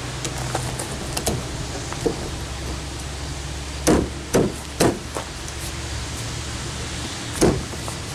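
Hammer strikes, as on a chisel cutting a recess in the door for a lockset latch: a few light taps, then three hard knocks about half a second apart, and one more knock near the end.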